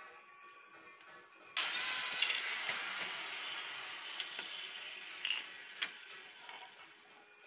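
An electric power tool working plywood starts loud and sudden about a second and a half in, then fades gradually over the next few seconds, with two short sharp clicks near the end. Faint background music lies under it.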